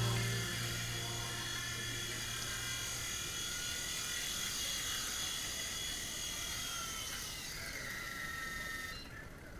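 Mini helicopter's small electric motor and rotor whining steadily at a high pitch, then slowing slightly and cutting off about a second before the end.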